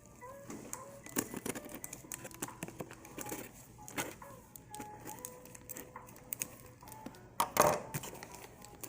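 A cardboard box being worked open by hand: irregular scratching, tapping and scraping at the tape and flaps, with one louder rip or thump near the end.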